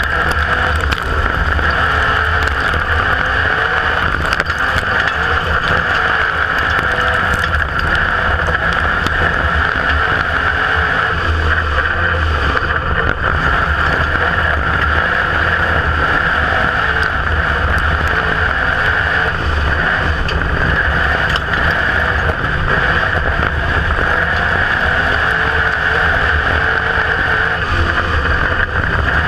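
IMCA Modified dirt-track race car's V8 engine running hard at racing speed, heard from a camera in the cockpit: a loud, steady drone with wind noise and little change in pitch.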